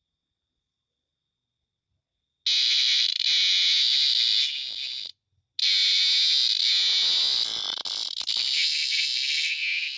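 Loud, continuous buzzing call of a small animal. It starts suddenly about two and a half seconds in, stops for about half a second near the middle, then carries on.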